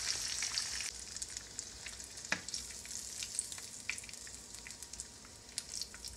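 Butterflied coconut shrimp frying in shallow oil in a skillet: a sizzling hiss with scattered pops and crackles. The sizzle thins out about a second in, and there is one sharper click a little after two seconds.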